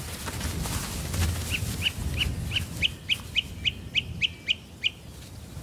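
A bird calling a run of about a dozen short, high chirps, about three a second, that stops about five seconds in.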